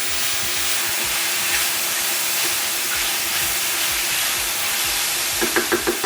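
Sliced onions, mushrooms and zucchini sizzling steadily in hot oil in a 12-inch skillet, with a quick run of about five short taps near the end.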